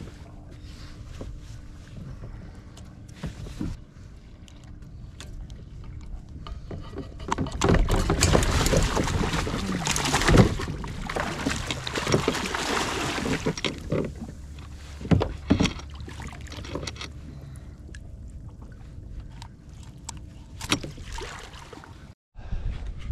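California halibut thrashing and splashing at the surface beside a kayak, a loud burst of splashing lasting about six seconds in the middle. A few sharp knocks follow it.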